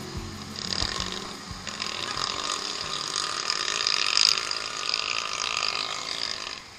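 Street traffic noise heard from a moving bicycle: a steady hiss of road and passing vehicles, swelling about four seconds in and easing off near the end.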